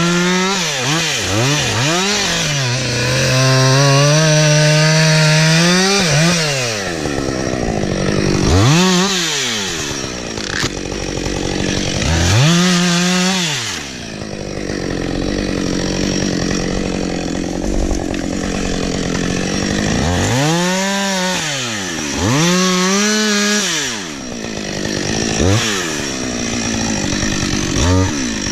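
Two-stroke chainsaw revving up and dropping back again and again, with a longer stretch of cutting through wood in the middle.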